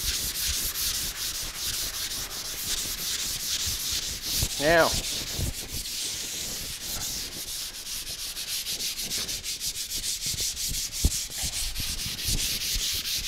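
Hand sanding guide-coated primer on a car's fender with 220-grit paper: a steady scratchy hiss in quick, even back-and-forth strokes, several a second.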